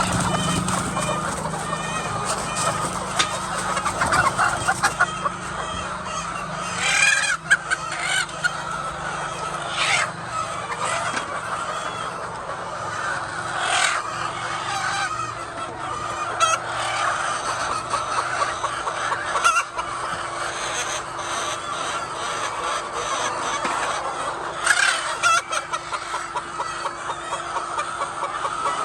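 A flock of hens clucking and calling continuously, with louder single squawks every few seconds and a faint steady hum underneath.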